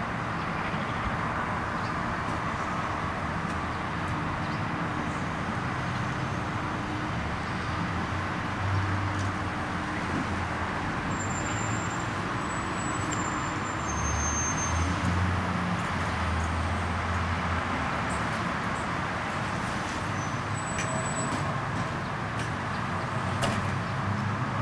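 Steady outdoor vehicle and engine rumble, like street traffic or idling trucks, with a deeper rumble swelling a couple of times and a few brief high-pitched chirps.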